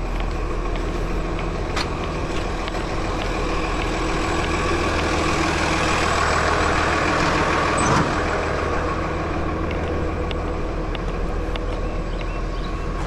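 Tractor-trailer's diesel engine running steadily with a constant low drone. A brief extra sound comes about eight seconds in.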